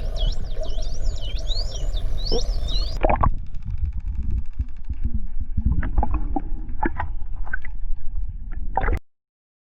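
Dolphins whistling underwater: many quick rising and falling squeals for about three seconds. After that, underwater bubbling and gurgling with scattered clicks and pops, which cuts off suddenly near the end.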